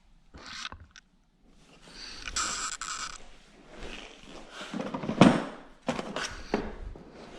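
Hand tools working on metal: a stretch of rapid clicking and scraping about two seconds in, then a loud clunk about five seconds in and a few lighter knocks.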